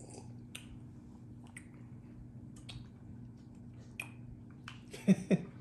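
Small wet mouth clicks and lip smacks of someone tasting a sip of whiskey, over a steady low hum. Near the end come two short, louder vocal sounds, each dropping in pitch.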